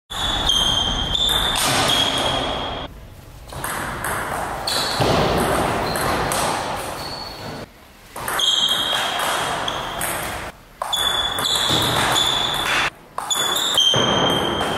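Table tennis rally: the celluloid ball clicks off the players' rubber paddles and the table in a quick, irregular series of sharp, high-pitched pings.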